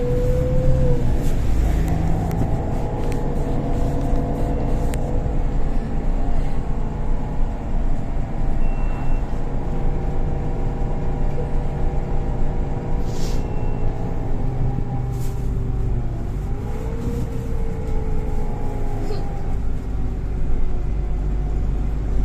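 Golden Dragon XML6125CC city bus with a Voith automatic gearbox under way, heard from inside the cabin: a steady engine drone with a transmission whine on top. The pitch dips and climbs again about two-thirds through as the bus slows and pulls away, and a few short hisses come through the middle.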